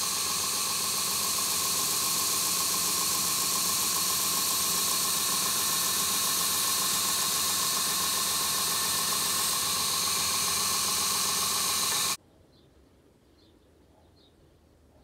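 Belt grinder running with a knife blade, clamped in an aluminium bevel jig, pressed against the belt: a loud, steady grinding hiss as the bevel is ground. It cuts off suddenly about twelve seconds in, leaving faint, evenly repeated high chirps.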